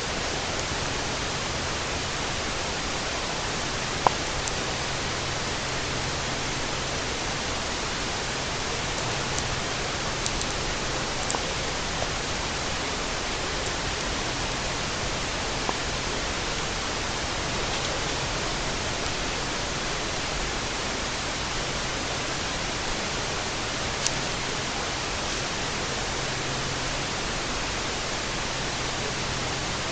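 Steady, even hiss with a few faint clicks, the sharpest about four seconds in and another near twenty-four seconds.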